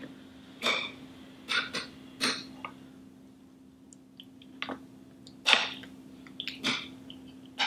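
Eating banana pudding: a metal spoon scraping and scooping in a glass baking dish, and mouth sounds of taking and chewing a spoonful. These come as about six short scrapes and smacks spread a second or so apart, over a faint steady hum.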